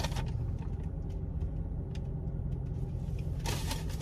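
Steady low rumble of a parked car's cabin, its engine idling, with faint small clicks and a brief rustle near the end.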